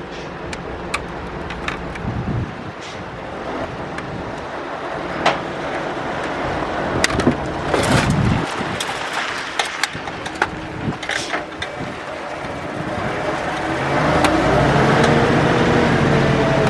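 Scattered clicks and knocks of plastic and metal parts being handled as a DVD recorder is taken apart. A steady hum with a slightly wavering pitch grows louder over the last few seconds.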